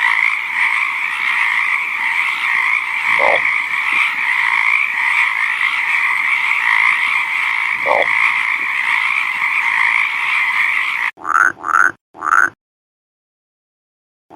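A dense chorus of many frogs calling over one another, steady and unbroken, that cuts off abruptly about eleven seconds in. Then three short, rising calls from a single frog follow in quick succession, and it goes silent.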